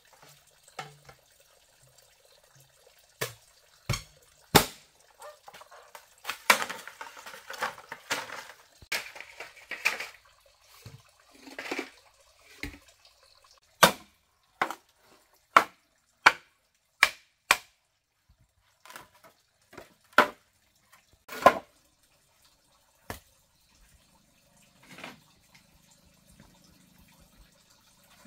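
Machete chopping and trimming green bamboo poles: about twenty sharp knocks at irregular intervals, some with a brief ring after the strike.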